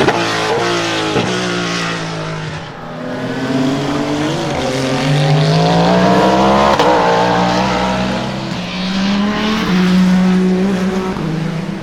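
Cadillac V-Series.R hypercar's V8 engine at racing speed: the note falls and steps down through the gears in the first couple of seconds, then rises as the car accelerates.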